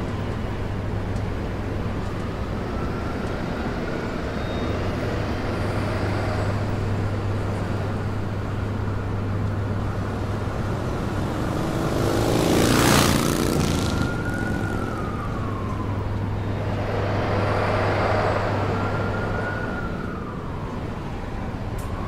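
City street traffic with a steady low hum and an emergency-vehicle siren wailing in the distance, its pitch slowly rising and falling. A vehicle passes close about thirteen seconds in, and another, less loud, a few seconds later.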